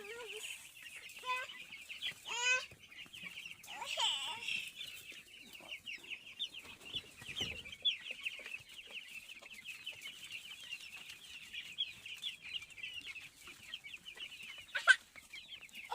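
A flock of 16-day-old chicks peeping continuously in many overlapping high cheeps, with a few louder calls now and then and the loudest near the end.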